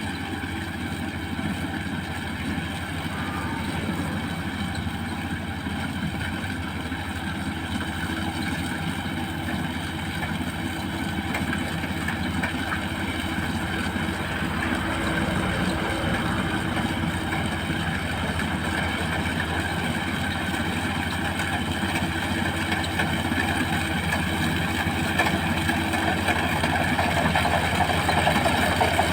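Combine harvester engine and machinery running steadily, a continuous mechanical drone that grows gradually louder toward the end.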